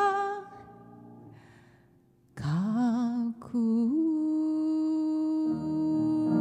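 A woman singing a slow ballad: a sung note fades away, there is a short near-quiet pause, then a new phrase slides upward into a long held note with vibrato. Piano chords on the A-bombed upright piano known as Akiko's piano come in under the held note about five seconds in.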